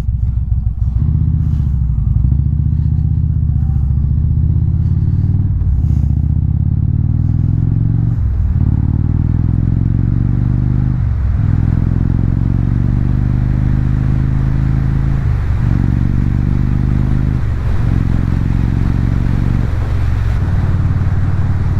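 Indian motorcycle's V-twin engine running under way, heard from the rider's position. The engine note breaks off and picks up again several times, as with gear changes.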